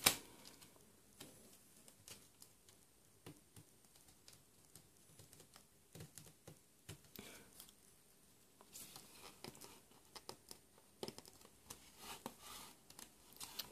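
CD jewel case being handled: faint scattered plastic clicks and paper rustling as the lyrics booklet is worked out from the tabs in the case's lid, with a sharper click at the very start.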